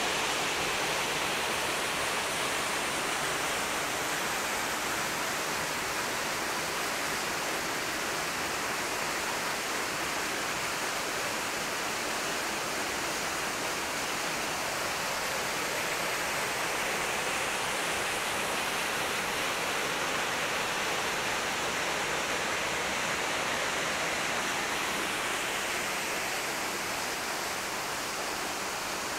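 Waterfall: falling water rushing steadily, with no breaks.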